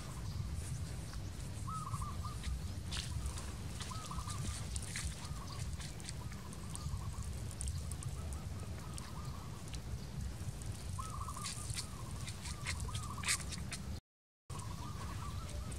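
Short, wavering animal calls repeat irregularly over a steady low rumble, with scattered sharp clicks. The sound cuts out completely for about half a second near the end.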